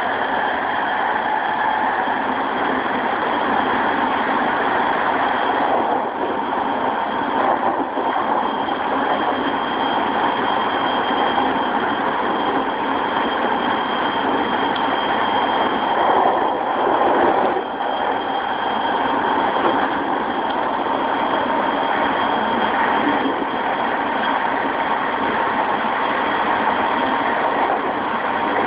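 Running sound inside a JR East E217-series motor car with its original Mitsubishi GTO VVVF inverter, at speed: a steady wheel-and-rail rumble with traction-motor whine held at steady pitch. A brief louder rumble comes about two-thirds through.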